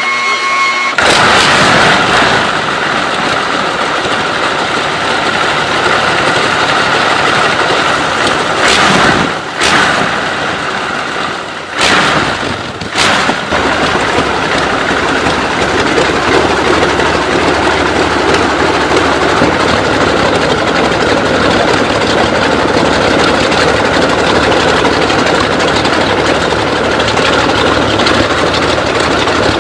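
Brief music, then the Brutus car's BMW VI V12 aircraft engine running through its open exhaust stubs with a loud, steady rough idle. A few sharp pops break through about nine seconds in and again around twelve to thirteen seconds.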